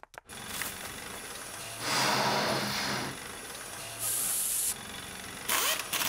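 Aerosol spray can hissing in three short bursts over a steady rushing background. The loudest burst comes about two seconds in, a thinner, higher one about four seconds in, and a brief one near the end.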